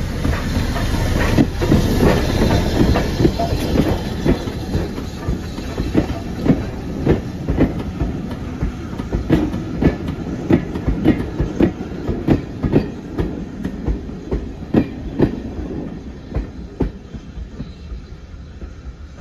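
Steam-hauled passenger train rolling past and away, its carriage wheels clicking over the rail joints in a steady rhythm of about two clicks a second. The rumble is loudest at the start and fades as the train draws away near the end.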